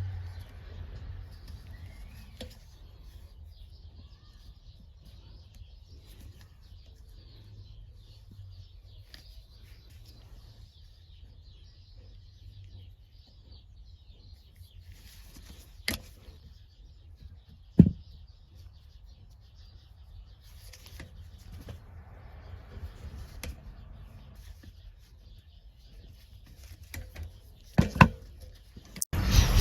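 Wire-splicing handwork on a light fixture: scattered sharp clicks and knocks of tools and parts being handled, with a louder cluster of knocks near the end. Faint bird chirping and a low hum run underneath.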